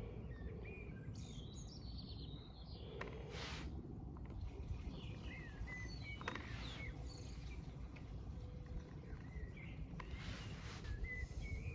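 Wild birds chirping and singing here and there over a low steady background rumble, with a few faint clicks and rustles.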